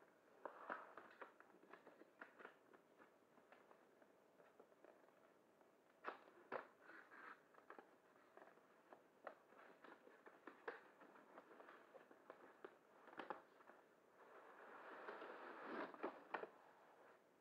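Cardboard packaging being handled and opened: scattered small crackles and taps as the box lid and its tape are pulled free, then a longer rustling stretch near the end as the lid comes up off the foam insert.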